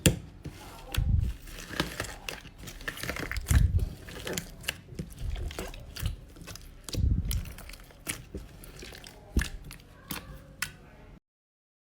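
Slime being squeezed and pressed by hand: irregular crackling clicks with soft low squishes every second or two. It cuts off suddenly just before the end.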